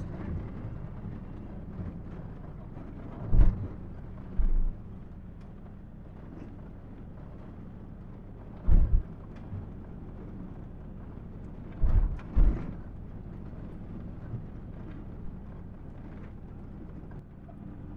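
Ford Ranger's 2.2-litre turbo-diesel engine running steadily while driving on a rough gravel track, with about six short, heavy thumps, some in quick pairs.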